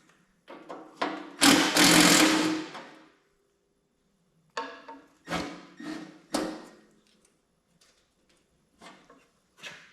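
Clanks and rattles of the sheet-metal hood and grille of a Cub Cadet 102 lawn tractor being worked loose and handled. A longer rattling clatter comes about a second and a half in, then a string of separate knocks.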